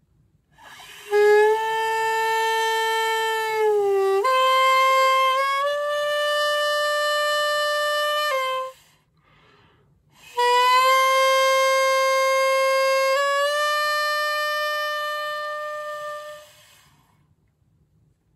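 Solo hichiriki, the small double-reed pipe of gagaku, whose reed is cut from yoshi (common reed). It plays two long phrases of held notes linked by sliding bends in pitch, with a short pause between them, and the second phrase fades away.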